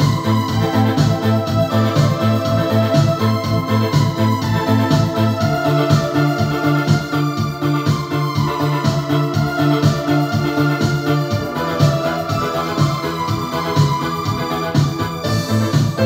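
Yamaha PSR-S750 arranger keyboard played live with both hands: a melody and chords over a steady, evenly pulsing low accompaniment.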